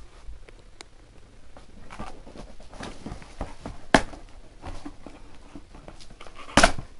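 Hands rummaging in a cardboard box: paper rustling and scraping against cardboard, with a sharp knock about four seconds in and a louder thump near the end.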